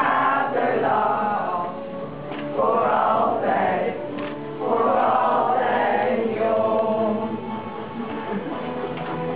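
A group of people singing a song together from song sheets, men's and women's voices mixed, in phrases with short breaks between them.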